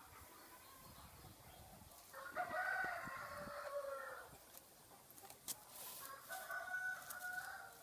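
Rooster crowing twice: one long crow about two seconds in that drops in pitch at its end, and a second, shorter crow near the end, with a few light clicks between.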